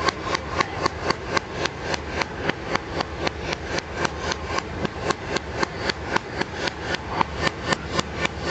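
A heavy cleaver chopping raw chicken into mince on a wooden log chopping block, each blow a sharp knock of steel through meat into wood. The blows come in a steady, even rhythm of about three a second.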